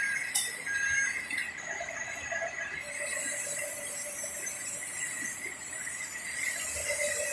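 Small electric motors and gearing of RC models whining steadily under a high hiss, with a sharp click about half a second in.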